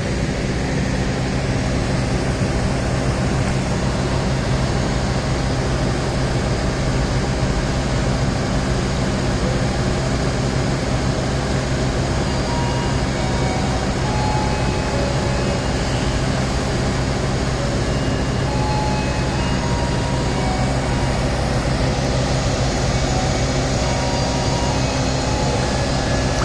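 Steady low drone of an idling diesel passenger train standing at the station: a constant hum that holds the same pitch throughout.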